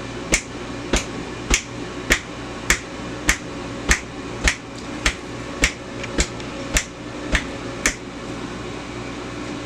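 About fourteen sharp, evenly spaced clicks, a little under two a second, that stop about eight seconds in, over the steady hum of a running air fryer.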